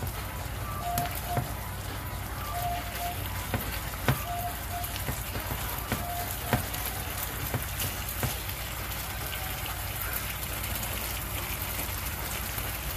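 Pork steak and onion rings sizzling in sauce in a frying pan, with sharp clicks of metal tongs against the pan now and then. Faint short beeping tones repeat through the first half.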